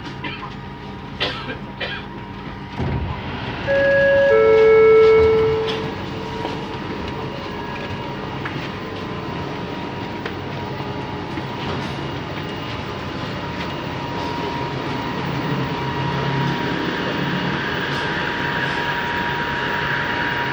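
A couple of sharp clicks, then a loud two-note door chime, a higher tone falling to a lower one, on a Bombardier Innovia Metro 300 LRT train. The train's running noise follows, with a steady thin whine, slowly growing louder as it pulls away.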